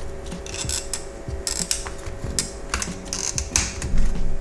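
Irregular plastic clicks and light scraping as hands handle a dismantled car instrument cluster on a workbench, with a louder knock about four seconds in.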